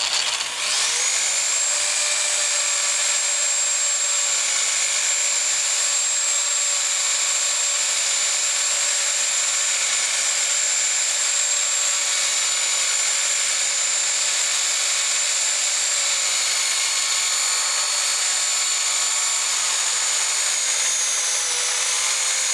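Electric drill spinning up and then running at a steady high whine as it bores out the head of a damaged crosshead screw in a motorcycle engine side casing.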